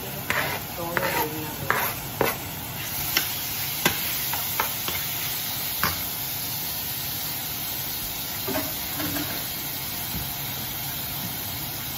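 Sliced onion sizzling steadily in hot oil in a frying pan, with a utensil clicking and scraping against the pan as it is stirred, mostly in the first half.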